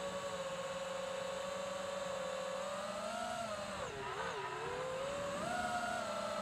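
FPV quadcopter's electric motors and propellers whining steadily. The pitch drops and wavers about four seconds in, then climbs back up, following the throttle.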